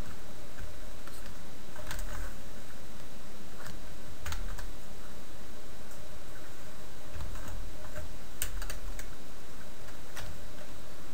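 Irregular, scattered clicks of a computer keyboard and mouse over a steady background hiss.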